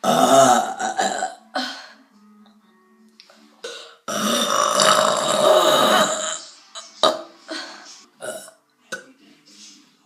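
A person burping over and over: a long burp at the start, a longer one of about two and a half seconds in the middle, and a string of short burps near the end.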